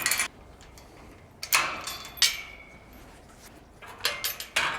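Steel farm gate being swung and clanking on its newly welded hinges and against its post, in three bunches of short metallic knocks with a brief ring.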